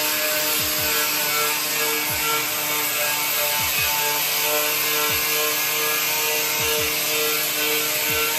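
Angle grinder with a wire wheel running steadily under load, with a constant motor whine, scouring old undercoating and rust off the steel floor pan and tunnel of a 1961 VW Beetle chassis.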